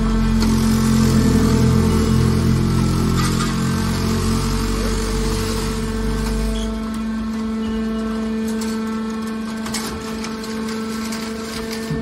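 Hydraulic aluminium scrap baler's pump running with a steady hum, labouring with a heavy low rumble as its ejector cylinder pushes the compressed bale out of the chamber. The rumble drops away about six and a half seconds in, leaving a lighter steady hum.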